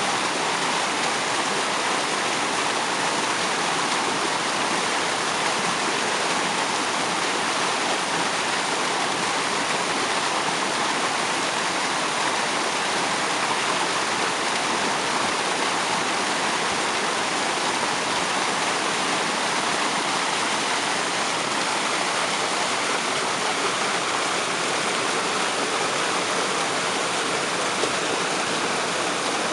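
Waterfall spray: water splashing and rushing in a steady, unbroken roar of white water.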